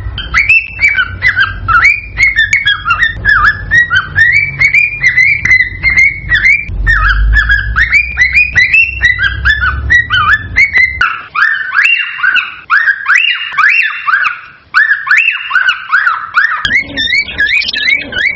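Cockatiel singing an excited, rapid warble: a run of whistled notes that swoop up and down, several a second. It is the male's courtship song, used to prompt a pair to breed. A low hum runs under it and stops about two-thirds of the way through.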